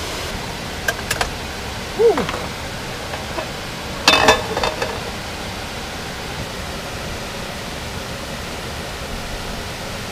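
Steady rushing of stream water spilling over a small dam, with a few brief clicks and clatters about two and four seconds in.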